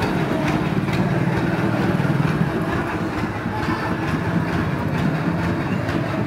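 Motor vehicle engines running on a street: a steady low drone with a clattering edge.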